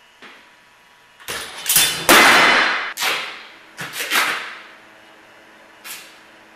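A run of loud crashing bangs with ringing, clattering tails: a small knock at the start, then about six heavy crashes over three seconds, the loudest and longest about two seconds in. One lighter knock follows near the end.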